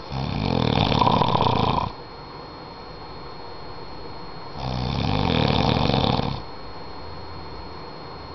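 A man snoring in his sleep: two long, fluttering snores, each close to two seconds, the second starting about four and a half seconds after the first, with quieter breathing between them.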